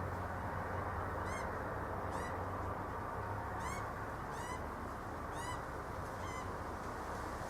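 A young bird's begging calls, short arched cries repeated about once a second, about seven in all, over a steady low hum.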